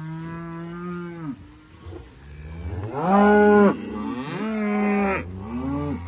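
Beef cows mooing: about four long moos, one after another and partly overlapping, the loudest about three seconds in.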